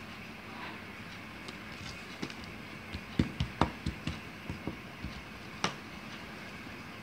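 Small scissors cutting paper on a wooden tabletop: a run of about ten sharp clicks and knocks from about three seconds in to near the end, over a steady hiss.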